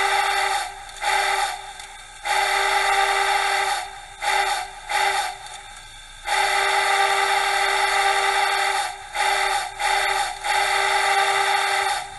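Deep three-chime steam whistle from a Soundtraxx Tsunami2 'Big Steam' DCC sound decoder, played through a small iPhone 4 speaker in a model Big Boy locomotive. It sounds a steady chord in long blasts alternating with groups of short toots, and stops just before the end.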